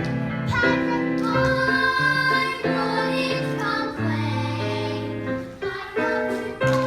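A song with a child singing over instrumental accompaniment, held notes changing every half second or so.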